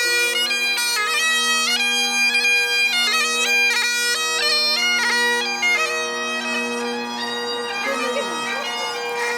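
Bagpipes playing a tune: a melody moving in quick steps from note to note over steady, unchanging drones.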